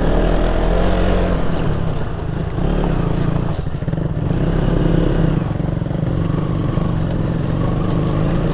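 Motorcycle engine running steadily at low speed, with a brief high hiss about three and a half seconds in.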